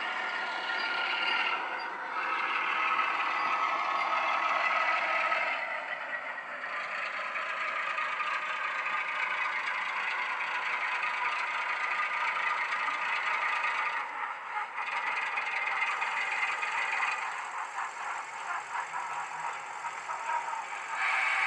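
Digitally reproduced British Rail Class 08 shunter diesel engine (English Electric six-cylinder) running under power from a DCC sound decoder through a small model speaker, its note changing several times as the locomotive pulls away with its wagons, with some clattering and rattling.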